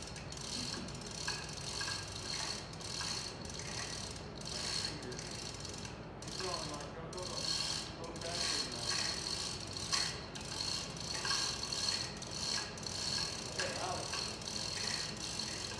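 Hand-operated chain hoist on a gantry carrying a grand piano, its ratchet clicking and its chain rattling in uneven runs.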